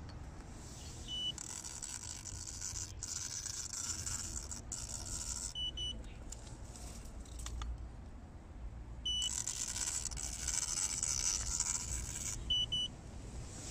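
CYCJET handheld drop-on-demand large-character inkjet printer at work. Twice it gives a single high beep as a print pass starts, then a steady hiss for three to four seconds while it rolls along the concrete printing, and ends with a quick double beep.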